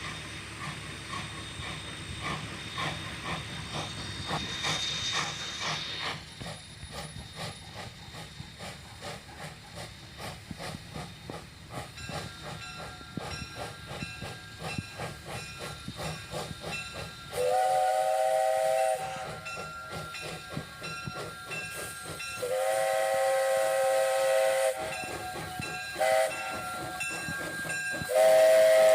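Jeddo Coal No. 85, a 1928 Vulcan Iron Works 0-4-0 tank engine, chuffing steadily as it approaches, then sounding its steam whistle for the grade crossing: long, long, short, long, the whistle blasts the loudest part.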